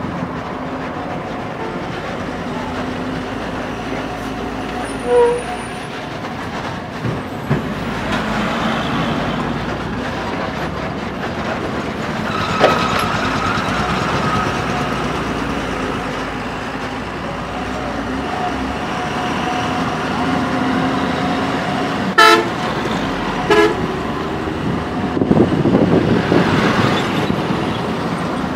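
Steady engine and road noise of a motorcycle riding in traffic among trucks, broken by a few short vehicle-horn toots, two of them close together in the last third.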